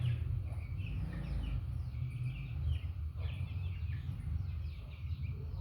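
Chickens calling in a flock: many short, high chirping calls overlapping throughout, over a steady low rumble.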